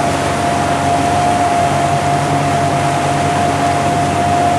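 Motorboat running steadily at cruising speed: a low engine hum with a constant whine over it, under a rush of wind and water.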